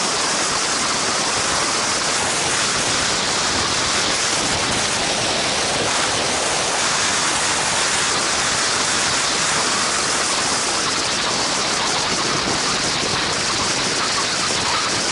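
Steady rushing wind noise, an even hiss strongest in the treble, with no gusts or breaks.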